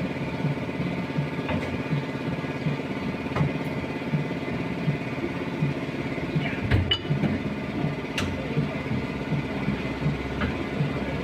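Vehicle engine idling steadily, with a couple of sharp clicks about seven and eight seconds in.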